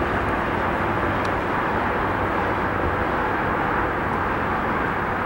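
Steady rushing jet noise from an Airbus A330-200 airliner on final approach with its landing gear down.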